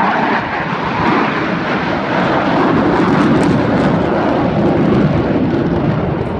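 Loud, steady jet engine noise from four Blue Angels F/A-18 Hornets flying past in diamond formation, swelling a little in the middle and easing off near the end.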